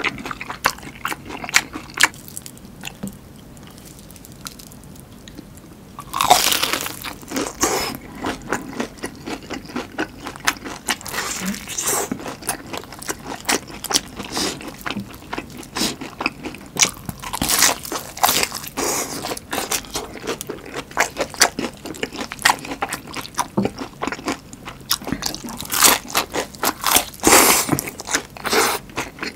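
Close-miked crunching and chewing of battered deep-fried chili peppers (gochu-twigim), the crisp batter crackling with each bite, with wet mouth sounds between. Louder crunchy bites come about six seconds in, again around eighteen seconds and near the end, with a quieter stretch of chewing just before the first.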